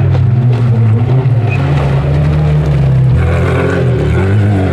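Off-road racing car's engine running loud and steady under load through mud, its note dropping deeper and heavier about three seconds in.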